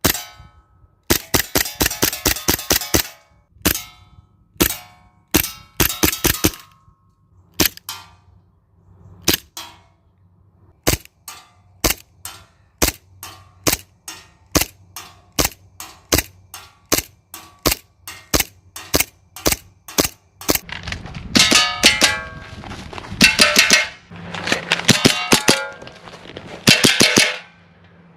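WE Beretta M92 gas blowback airsoft pistol firing repeatedly. First come quick strings of shots, then single shots about half a second apart. In the last several seconds the shots are mixed with metallic clanging and ringing.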